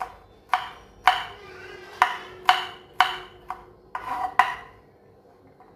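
Kitchen knife chopping smashed garlic cloves on a wooden cutting board: about eight sharp knocks of the blade on the board, roughly two a second, stopping about four and a half seconds in.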